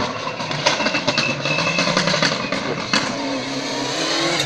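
Rally car engine coming up the hill toward the listener under hard acceleration, growing louder as it nears, with a scatter of sharp cracks in the first few seconds.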